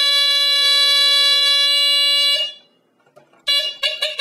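Battery-powered smoke alarm's horn sounding on test: a loud, steady, low-pitched tone that holds continuously rather than pulsing, then cuts off about two and a half seconds in. After a second of quiet it gives a few short, stuttering blasts near the end.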